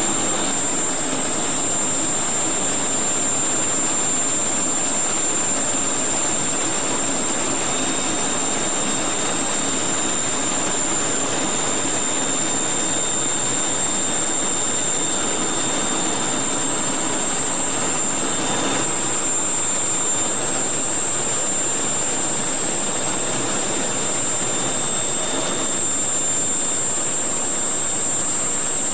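Steady in-flight cockpit noise of a Mirage III: the SNECMA Atar 09C turbojet and the airflow make an even, loud rushing noise with a constant high whine over it, unchanging throughout.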